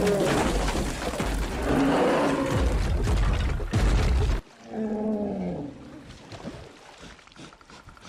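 Film fight sound effects: loud animal roaring over a heavy low rumble, which cuts off abruptly about four and a half seconds in. A shorter growl follows, then the sound falls much quieter.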